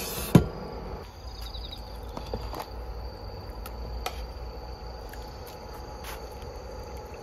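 Crickets chirping in a steady, high, thin trill. A single sharp knock sounds just after the start, and a few faint clicks follow later.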